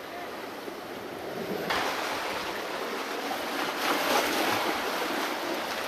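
Sea surf washing against the rocks, a steady rushing noise that swells about two seconds in.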